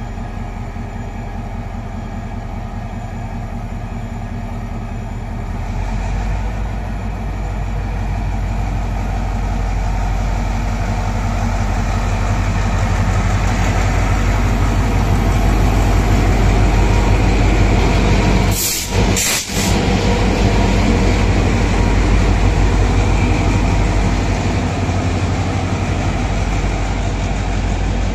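TCDD DE 22000-class diesel-electric shunting locomotive running as it hauls passenger coaches into the station, growing louder as it approaches and passes, then the coaches' wheels rolling by. About two-thirds through, the sound is briefly broken by two short dropouts.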